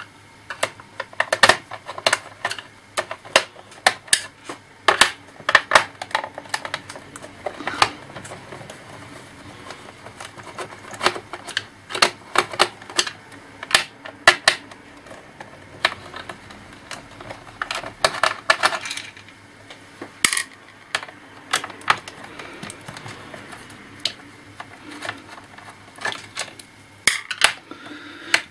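Irregular clicks, taps and small clatters of a screwdriver and small screws against a laptop's plastic case as the screws are taken out one by one.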